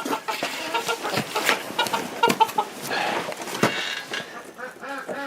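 Chickens clucking, many short calls overlapping, mixed with scattered sharp clicks and taps.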